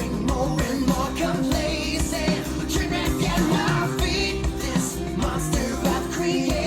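Pop song with a singing voice and full band, played back through a hi-fi stereo amplifier and loudspeakers.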